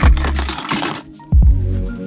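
Background music with a deep bass beat that hits about every second and a half, with a steady melody above it.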